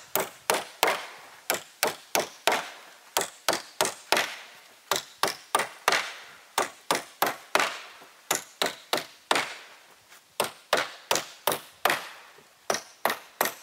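Hammer driving nails into layered wooden boards: a run of sharp strikes, about three a second, with a few brief pauses between nails.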